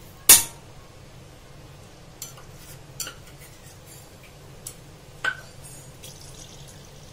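Steel utensils clinking against stainless steel cookware: one sharp clink about a quarter second in, then four fainter clinks, the last but one ringing briefly, over a low steady hum.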